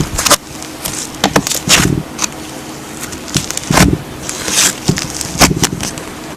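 Slime being squeezed and poked by hand, giving a run of irregular sticky clicks and pops, some with a deeper squelch.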